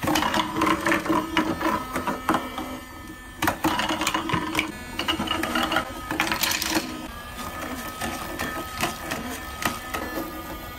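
Small fan motors of battery-powered Minion hover air-hockey pucks, running with a steady whir as they glide over a table, with sharp plastic clacks and knocks now and then.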